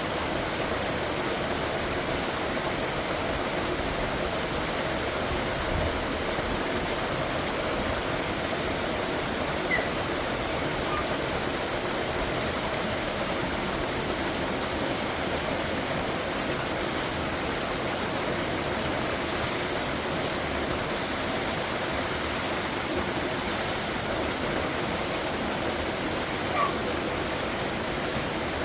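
Waterfall: a steady, unbroken rush of falling water. Two brief faint chirps stand out, about ten seconds in and near the end.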